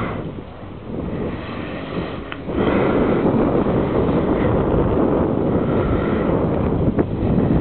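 Wind buffeting the microphone, heavier from about two and a half seconds in, over the faint drone of a radio-controlled Seawind model airplane's motor as it flies overhead.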